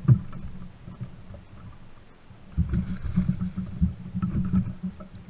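Irregular low thumps and rumbling from a canoe's hull, knocked as a hooked largemouth bass is landed alongside. One sharp thump comes right at the start, and a busier run of thumping with faint splashing begins about halfway through.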